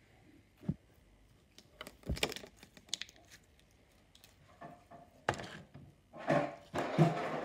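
Green slime being squeezed and stretched by hand: scattered sticky clicks and crackles, growing denser and louder near the end.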